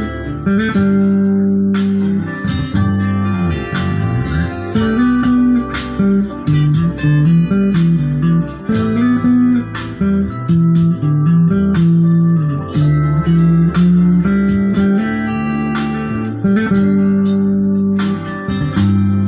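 Electric bass guitar playing a melodic bass line of plucked notes, with notes sliding up and down about four seconds in.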